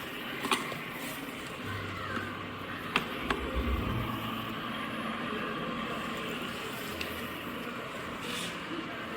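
Dreame H12 Pro wet-dry vacuum running its self-cleaning cycle in its base, a steady motor whir. Sharp clicks come about half a second in and twice around three seconds in, with a low hum underneath for a couple of seconds.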